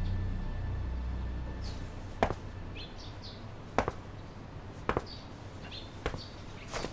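A low background-music drone fades out, then a few sharp, sparse knocks follow about a second or so apart, with faint high chirps in between.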